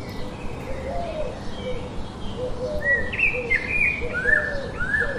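Birds chirping over a steady background hiss: lower short calls repeat throughout, and sharper, higher chirps come in about three seconds in.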